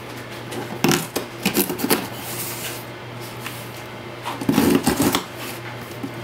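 Cardboard shipping box being opened by hand: a string of clicks and knocks, then scraping and rustling of cardboard and packing tape, with a louder burst of handling a little before the end.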